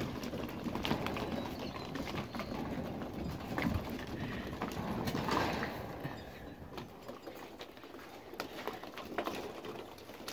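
Seven-week-old Pomsky puppies playing on a wooden deck: scattered light clicks and knocks of small paws and plastic balls on the boards.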